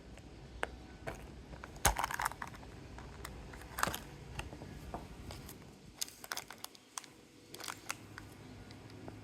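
Irregular hard plastic clicks and knocks with some crinkling, from a gachapon capsule and its wrapped toy being handled and opened.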